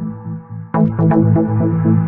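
Electronic background music with sustained synthesizer notes and percussive hits; it drops away briefly near the start and comes back in strongly just before the middle.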